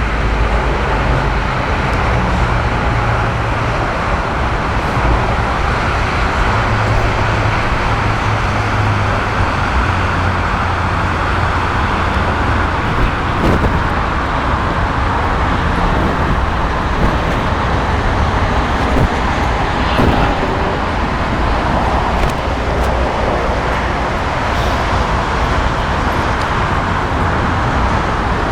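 Steady low roar of engine noise with a deep rumble, holding level throughout with no clear rise or fall, and a few faint clicks.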